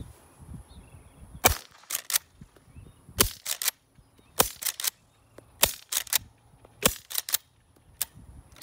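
Integrally suppressed Browning BLR lever-action rifle in .300 Blackout firing five shots about a second and a quarter apart. Each muffled report is followed by a quick clack-clack of the lever being cycled to chamber the next round.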